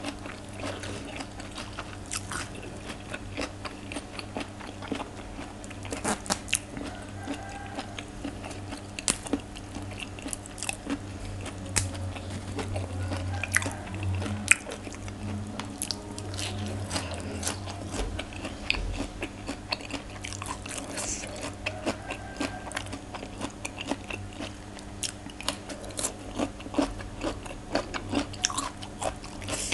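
Close-miked chewing and biting of crunchy raw food, fresh vegetables and papaya salad, with sharp crunches coming irregularly.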